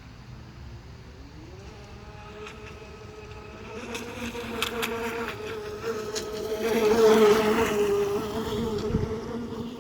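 Aquacraft P-27 Gunslinger radio-controlled model boat running on the water, its motor giving a high, steady buzzing whine. The pitch rises about two seconds in, and the sound grows louder to a peak about seven seconds in, then eases off.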